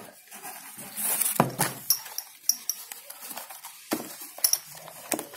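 Small plastic chemical bottles and containers being handled and set down in a cardboard box insert: irregular clicks and taps, with a few louder knocks.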